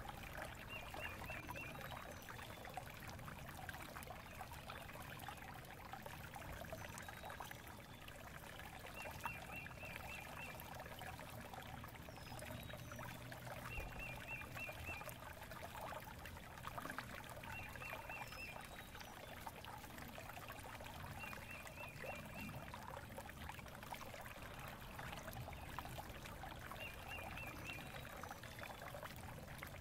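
Faint steady flowing water like a small stream, with a bird trilling a short run of quick high notes every few seconds.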